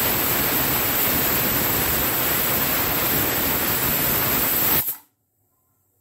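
Pigeon aluminium pressure cooker whistling: steam jets out under the lifted weight valve in a loud, steady hiss. The hiss stops abruptly about five seconds in.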